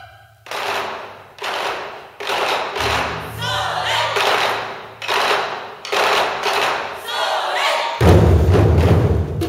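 Taiko ensemble of barrel drums (nagado-daiko) struck together with bachi sticks in heavy unison hits roughly once a second, with the drummers' shouts (kakegoe) between strokes. Near the end the hits get louder and deeper.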